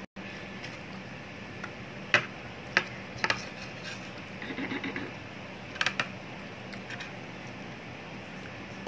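Handling sounds of a knife cutting through a soft bread loaf on a plate and a slice being pulled apart by hand: a few sharp clicks and a soft rustle over steady room hiss.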